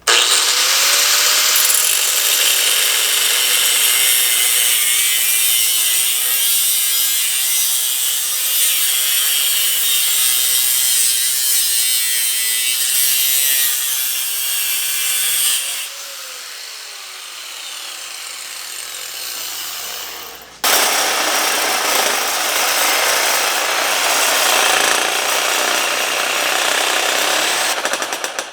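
Cutoff wheel cutting through the metal flange of an old turbo hot-side pipe: a loud, harsh grinding noise over a steady motor whine. About halfway through it eases off and the motor's pitch falls as it slows, then about two-thirds of the way in it bites into the metal again abruptly and keeps cutting until near the end.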